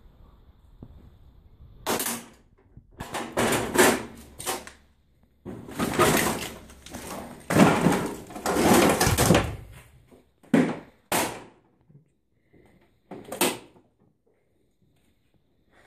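A wooden cupboard door being pulled open and handled: a run of irregular scrapes, rustles and knocks, with a few short sharp knocks in the last few seconds.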